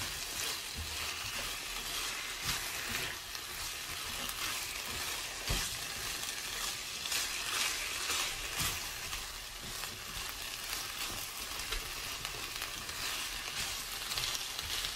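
Dakgalbi (spicy chicken with rice cakes and cabbage) sizzling in a nonstick frying pan while being stirred with a silicone spatula: a steady frying hiss with a soft knock now and then as the food is turned.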